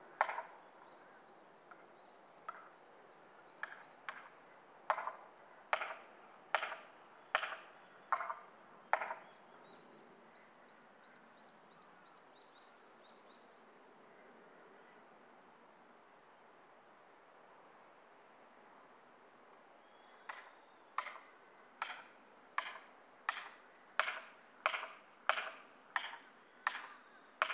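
Hammer blows on a steel felling wedge, struck about once every 0.7 s with a short ring after each. There are two runs of strikes, about ten, then a pause of some ten seconds, then about a dozen more, driving the wedge to tip the tree over a stiff hinge.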